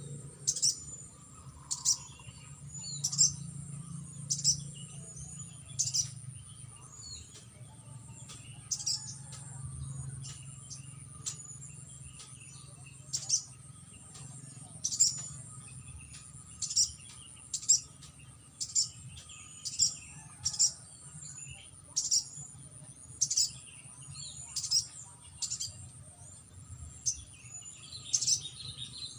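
Sogon (crimson sunbird) chirping: short, sharp, high calls repeated about once every second or so. A steady high whine runs underneath.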